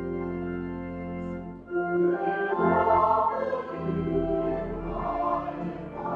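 Organ holding a sustained chord, then about a second and a half in, a choir comes in singing a hymn over the organ.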